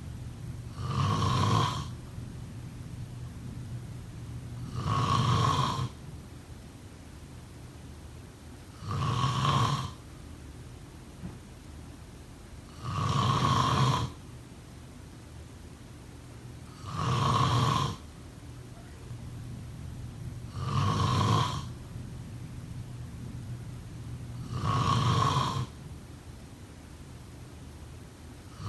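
A person snoring in a slow, regular rhythm: one snore about every four seconds, each lasting about a second.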